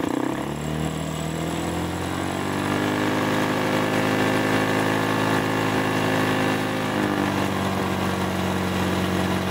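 Honda Vario scooter's single-cylinder four-stroke engine revved with its air filter off while carbon cleaner is sprayed into the intake. The revs climb over the first few seconds, hold, then drop back to a lower steady speed about seven seconds in.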